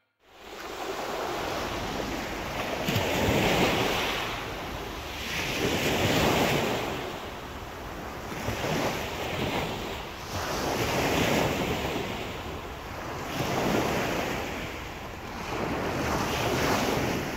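Small sea waves breaking and washing up a pebble beach, surging about every two to three seconds. Wind buffets the microphone throughout.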